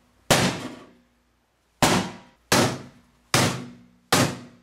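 Hammer blows on a microwave oven: five hard, unevenly spaced strikes, each ringing briefly and dying away.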